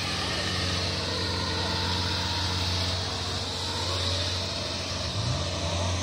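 Kubota DC-70 combine harvester's diesel engine running steadily with a low hum, wavering briefly about five seconds in.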